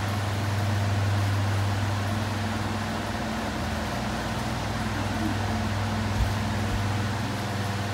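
Electric pedestal fans running: a steady low hum over a broad rush of air. A short soft thump comes about six seconds in.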